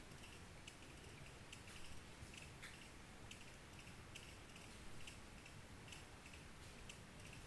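Faint trickle of a small stream, with irregular little clicks and plinks of water over a soft steady wash.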